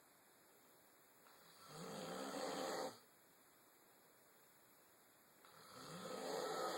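Snoring: two long snores about four seconds apart, each swelling over a second or so and then stopping abruptly, with a low, wavering pitch.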